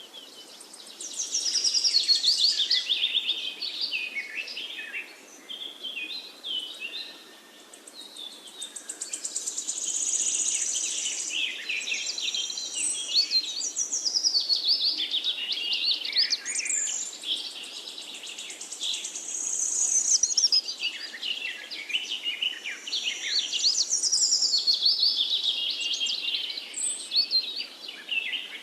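Several songbirds singing at once in a dense chorus of rapid, overlapping chirping phrases that swell and ease every few seconds, over a faint steady background hiss.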